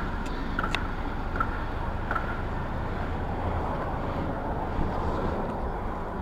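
Steady low rumble and noise, like wind on the microphone or a running vehicle, with a few light clicks and short high beeps in the first two seconds.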